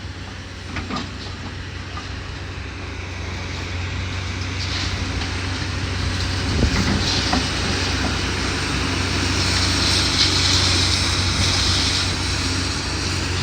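Demolition excavator's diesel engine running steadily, with scattered knocks and clatter of debris. A rush of noise builds from a few seconds in and is loudest near the end.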